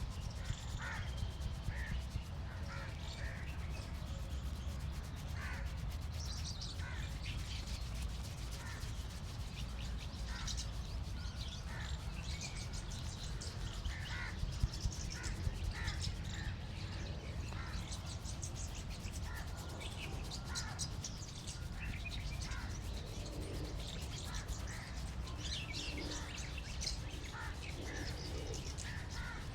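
Crows cawing on and off, with smaller birds chirping, over a steady low rumble, and one brief louder knock about halfway through.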